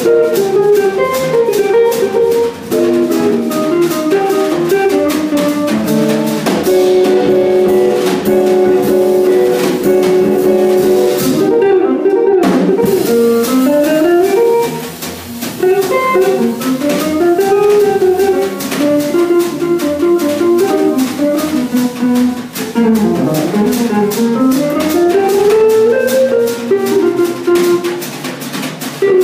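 Jazz trio playing: an amplified hollow-body archtop guitar holds chords through the first half, then plays single-note runs that rise and fall, over plucked upright double bass and a drum kit keeping time on the cymbals.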